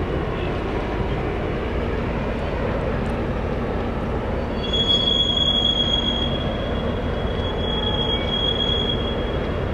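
A rotary railcar dumper tipping coal cars, heard as a steady low rumble. A high, steady squeal joins a little under halfway through and lasts about four and a half seconds.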